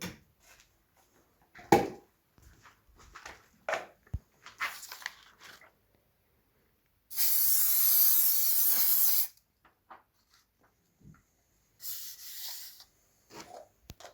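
Aerosol spray adhesive hissing from a can, sticking a paper template to wood: one steady burst of about two seconds, then a shorter burst near the end. Scattered taps and knocks of handling come in between.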